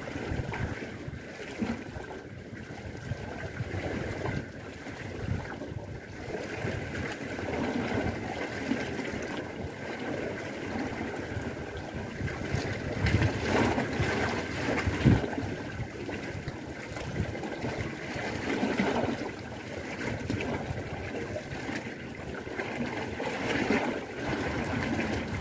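Water sloshing and lapping against a concrete dam wall, a continuous wash of noise with a faint steady whine underneath and a single soft bump about halfway through.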